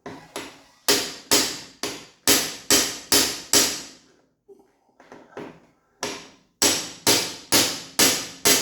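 Hammer blows in two runs of about seven strikes each, two to three a second, each strike ringing briefly, with a pause of about two seconds between the runs.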